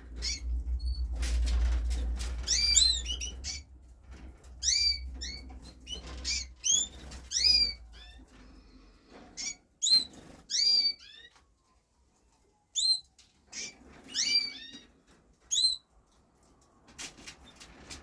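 Raza Española canaries in their cages giving short, high chirping calls in scattered clusters, with occasional clicks. A low rumble runs under the first few seconds.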